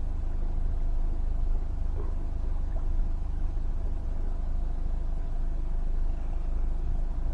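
Boat's outboard motor running steadily under way: a deep constant rumble with a faint steady hum above it.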